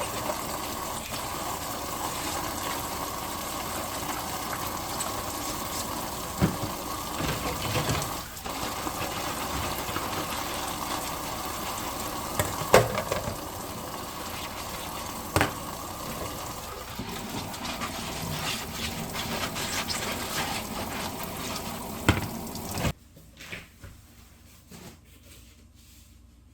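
Water running steadily from a tap, with a few sharp knocks and clinks along the way; the water is shut off suddenly near the end.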